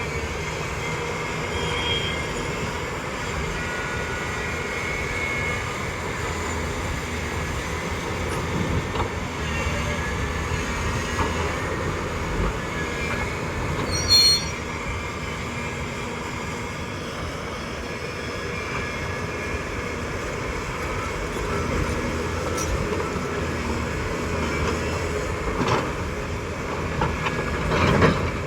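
Volvo excavator working: a steady engine and machinery noise with thin high squeals running over it, and a brief sharp loud sound about halfway through.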